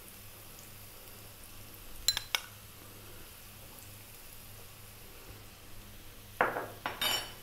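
Sliced onions frying in oil in a non-stick pan, a faint steady sizzle, as flour is spooned over them. A metal spoon clicks twice on the pan about two seconds in, and a few louder knocks and clinks of utensils come near the end.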